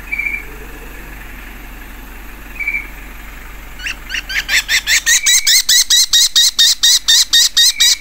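Kestrels calling: a couple of short single notes, then from about four seconds in a loud, rapid series of shrill kee-kee-kee calls, about three or four a second. These are alarm calls, the chick answering its screaming mother and calling for protection.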